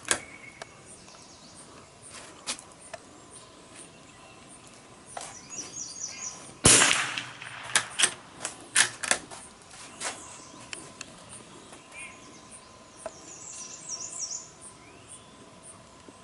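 A single loud shot from a Ruger American rifle with a short echo, about a third of the way in, followed over the next few seconds by several sharp clicks and cracks. Birds chirp twice, in the first half and again near the end.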